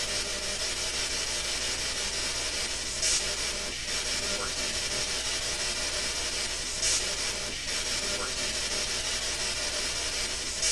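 Steady electronic static hiss with a low hum underneath, swelling briefly in short louder rushes about three seconds in, about seven seconds in and again at the very end.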